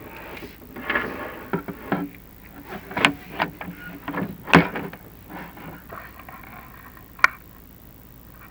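Chimney inspection camera knocking and scraping against the flue walls as it is lowered down the flue: a run of uneven knocks and rubbing, the loudest knock about four and a half seconds in and a last sharp one near seven seconds.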